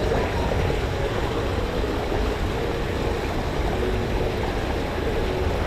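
Mountain river water rushing steadily over rocks, a continuous even rush.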